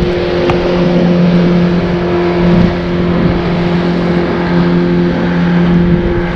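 Motorboat engine running at a steady speed, a low hum that holds one even pitch.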